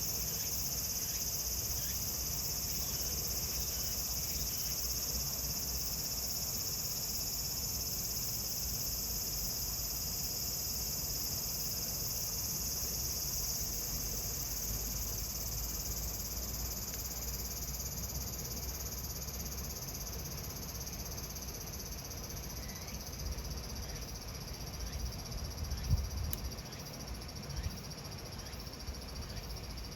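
Cicadas in a steady, high-pitched summer chorus that eases a little about halfway through. A few faint pops of a wood fire burning in a pizza oven come near the end.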